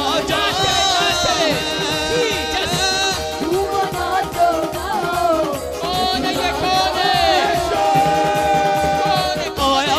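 Music with singing: a wavering melody over an accompaniment, with one note held long near the end.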